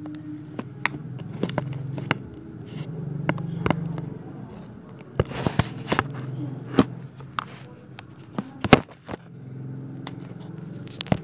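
Homemade slime being squeezed and poked by hand, giving irregular sharp pops and clicks, with one louder pop near the end, over a steady low background hum.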